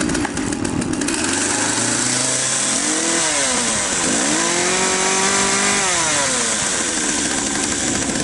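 Partner 350 two-stroke chainsaw engine pull-started and running. It is revved, drops back, then held at high revs for a second or two before falling back to idle. With its clogged muffler replaced, it takes full throttle without stalling and settles to a slightly high idle.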